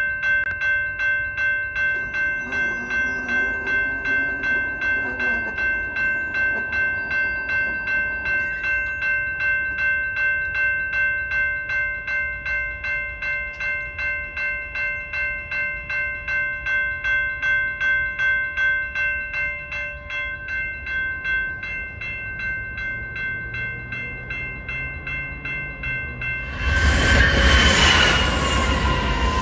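Railroad crossing warning bell ringing steadily, about two strikes a second. Near the end a BNSF freight train's locomotive passes loudly over the crossing, drowning the bell in its noise.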